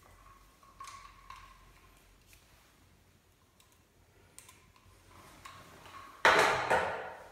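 Small plastic clicks and ticks from handling and opening a Minox daylight developing tank, then a louder rough rustling rub about six seconds in that lasts under a second.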